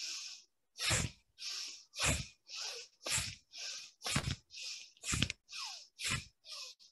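Bhastrika pranayama (bellows breath): forceful, audible breathing with a hissy inhale and a heavier, sharper exhale alternating about once a second, six rounds.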